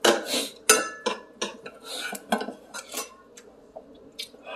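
Metal spoon and fork clinking and scraping against glass and metal bowls during a meal: two sharp clinks in the first second, then lighter taps and scrapes.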